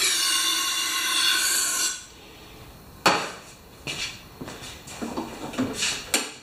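Aerosol spray can hissing loudly for about two seconds, typical of starting fluid being sprayed into a hard-starting small mower engine. A sharp knock follows about three seconds in, then a few lighter clicks and taps.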